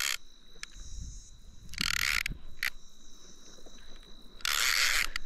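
Shimano Saragosa 8000 spinning reel being worked as a small shark is fought, with mechanical clicking and two short bursts of hiss. A steady high-pitched whine runs underneath.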